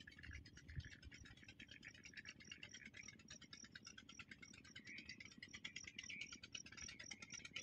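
Near silence: a faint, rapid, evenly repeating high-pitched pulsing, over a low rumble.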